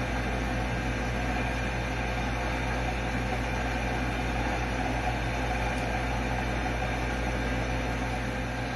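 Steady hum and hiss of a running appliance motor, even and unchanging, with a low mains-like hum and a faint steady tone above it.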